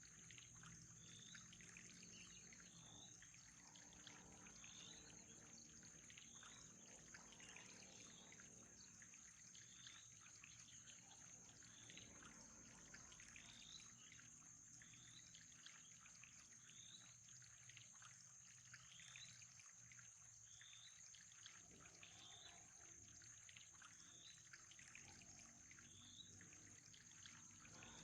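Faint trickling water under a steady high whine, with a short high chirp repeating about every second and a half.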